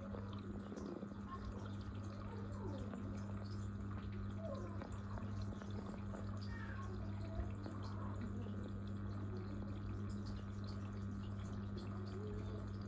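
Aquarium water trickling and dripping, with small scattered gurgles over a steady low hum.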